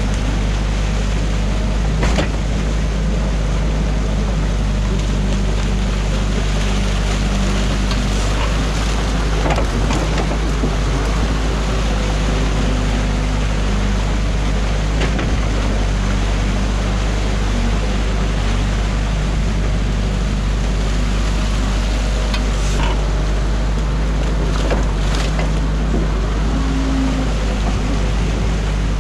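Yanmar excavator's diesel engine running steadily, heard from inside the cab, with a few sharp knocks as the bucket works through the dam.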